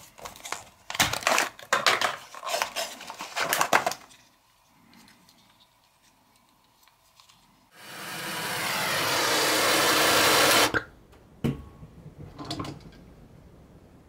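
Cardboard box being opened by hand, crinkling and rustling for about four seconds. After a lull, a hydrogen-oxygen torch flame hisses for about three seconds, swelling in level and then cutting off suddenly. A few sharp clicks follow.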